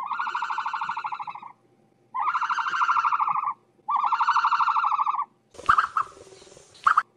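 An animal call repeated three times: long, buzzing, rapidly pulsed notes of about a second and a half each, with pauses between. Near the end comes a sudden hissing noise with a couple of short sharp calls.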